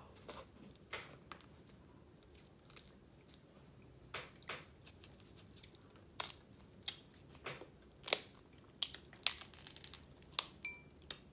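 Close-miked chewing, then snow crab leg shells cracking and snapping as they are broken apart by hand: a string of sharp cracks that comes thicker in the second half, the loudest about eight seconds in.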